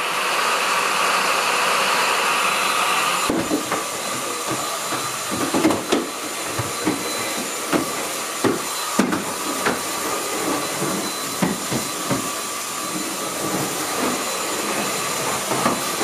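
MOOSOO K17 cordless stick vacuum's brushless motor running at full (max) power with its brush roll spinning: a steady hiss with a thin whine. About three seconds in the sound changes a little, and then irregular knocks and bumps come as the vacuum is handled and set on the floor.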